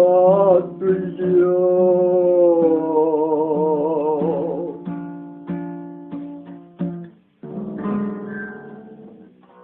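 Closing bars of a song: a male singer holds a long last note with vibrato over strummed acoustic guitar. The voice then drops out, and the guitar strums on and strikes a final chord that rings and fades away.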